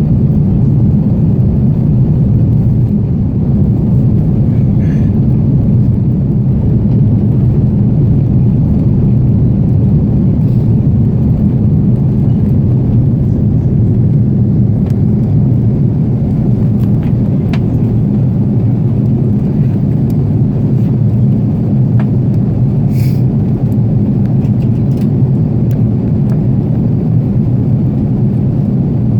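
Steady, loud low rumble of an Airbus A330's engines and airflow, as heard inside the passenger cabin.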